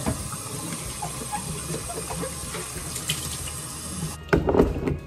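Kitchen tap running into a sink while a plastic pet water bowl is rinsed out, with light knocks of the bowl against the sink. About four seconds in the running water cuts off abruptly and a few louder knocks follow.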